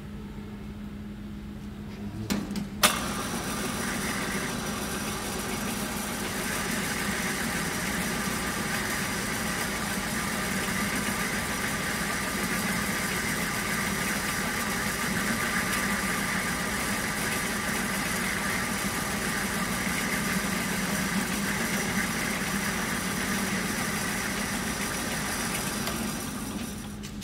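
Centre lathe switched on with a sharp clack about three seconds in, then running steadily while turning a metal workpiece on the carriage. It stops shortly before the end.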